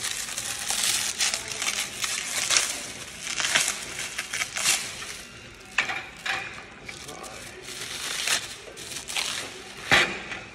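Clear plastic stretch wrap crinkling and rustling as it is peeled off a boxy plastic-and-metal unit, in irregular bursts with a sharp crackle just before the end.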